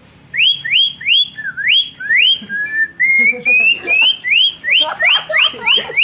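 A boy whistling an imitation of a murai (white-rumped shama) song: a string of quick upward-sweeping whistled notes, a slower run of gently rising notes in the middle, then quick rising notes again.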